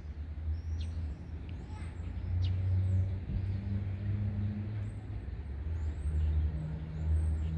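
Low, steady motor-traffic rumble with a faint engine hum, while small songbirds give short high chirps several times. The hooded crow itself does not call.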